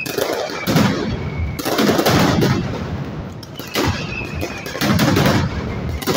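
Mascletà firecrackers bursting in rapid, dense volleys of loud cracks and bangs, coming in waves with short lulls. A brief high whistle sounds about four seconds in.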